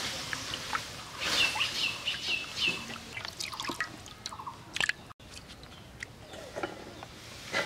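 Water sloshing and dripping as hands rinse pieces of tilapia in a clay bowl, with small splashes and clicks as the fish is handled. A bird chirps a quick series of short notes about a second and a half in.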